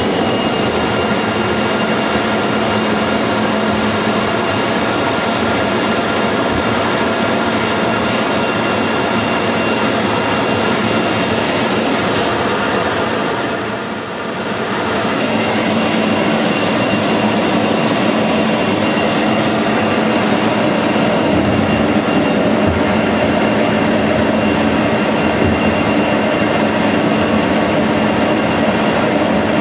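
Jet aircraft engine running steadily, heard from inside the cockpit during landing rollout and taxi: a constant whine with high steady tones over a loud rushing noise. It dips briefly in loudness about halfway through, then returns.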